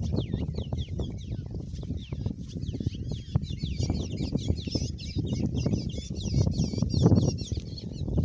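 Many small birds chirping: quick, high, falling notes repeated over and over, thickest in the second half. Underneath is a louder low rumble and rustle with soft knocks close to the microphone.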